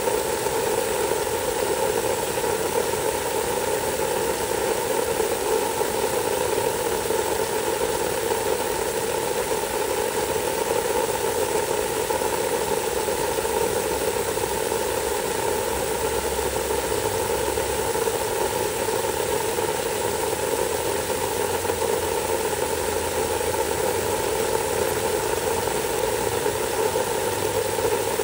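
Water spraying steadily from a hose onto wet mulch against a house foundation in a water test for seepage, an unbroken rushing hiss.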